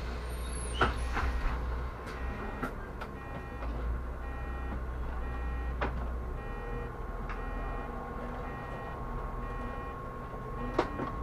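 Inside a Solaris Urbino 18 articulated city bus: a steady low engine hum with a thin constant whine, and a few sharp knocks and rattles from the body, the first about a second in, just after the door warning beeps.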